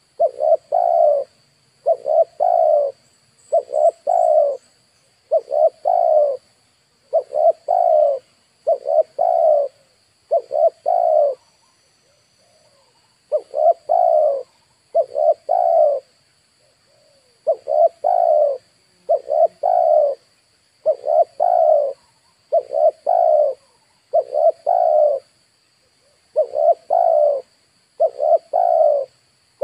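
Spotted dove cooing over and over: a throaty phrase of two or three notes roughly every second and a half, breaking off briefly a few times.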